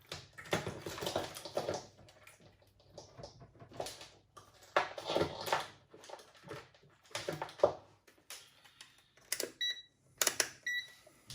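Clicks, rustles and scrapes of small plastic and metal parts of a cassette walkman mechanism being handled at the bench. Near the end, two sharp clicks are each followed by a short high beep.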